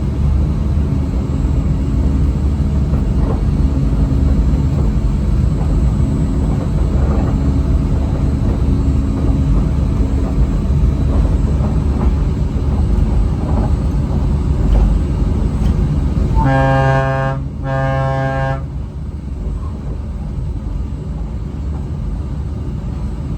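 Disneyland Mark VII monorail running on its beam, heard from inside the front cabin: a steady low rumble with a faint motor whine. Near the end the monorail's horn sounds two blasts of about a second each in quick succession.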